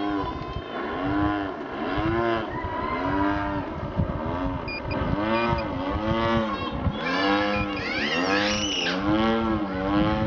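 PTE 36cc two-stroke gas engine of a 70-inch Slick RC aerobatic plane in flight, its pitch rising and falling in repeated swells about once a second.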